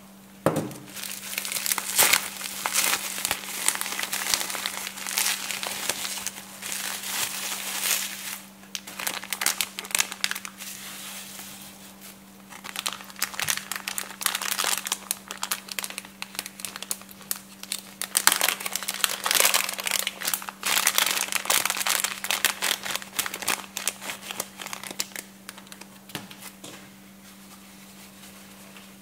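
Bubble wrap, a thin plastic bag and tissue paper crinkling and rustling as hands unwrap a small package, in irregular crackly bursts that ease off near the end. A faint steady low hum runs underneath.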